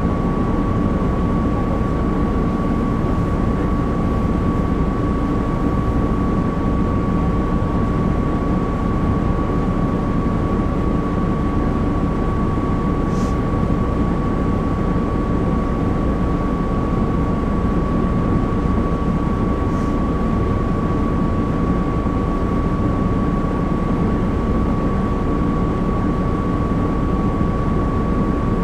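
Cabin noise at the back of a 1996 Nova Bus RTS, its rear-mounted Cummins C8.3 diesel engine running steadily, with a constant high whine over the engine sound. Two faint short hisses come through partway along.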